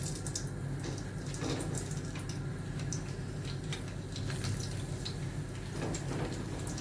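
Cauliflower and eggplant pieces deep frying in hot corn oil: steady sizzling with scattered sharp crackles.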